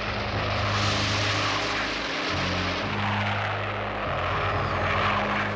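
Cartoon vehicle sound effect: a steady low engine hum under a rushing whoosh that swells about a second in and again near the end.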